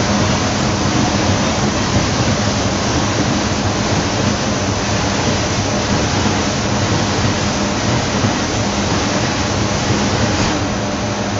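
Bizzozero Mica TC 1600 corrugated-board slitter-scorer and vacuum belt feeder running: a loud, steady rushing noise over a low hum. The hiss eases a little near the end.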